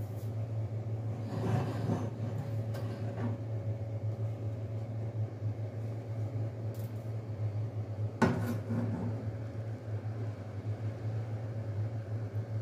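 Iron tawa knocking and scraping against the gas stove's metal grate as it is tilted off the burner. There are several knocks, the loudest about eight seconds in, over a steady low hum.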